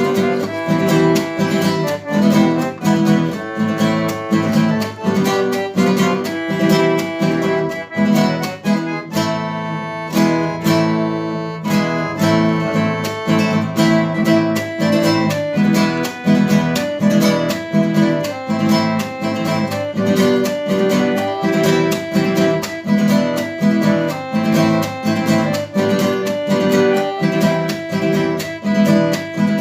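Music played on acoustic guitar, strummed and plucked in a steady rhythm, with a brief sparser passage about a third of the way in.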